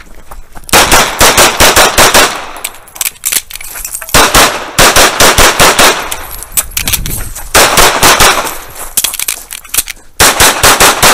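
Tanfoglio Stock 2 pistol fired in quick strings of shots, several shots a second. There are four strings of roughly eight shots each, with pauses of about two seconds between them.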